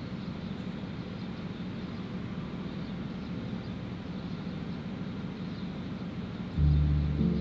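Electricity generators running with a steady low drone, powering the area during a power cut. Background music comes in suddenly near the end.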